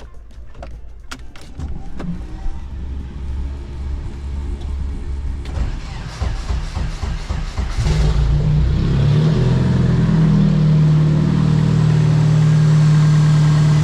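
Turbocharged Nissan KA24DE four-cylinder engine, with a newly fitted Garrett GT2871R turbo, being started. After several seconds of lower rumbling it catches about eight seconds in and settles into a steady, louder idle.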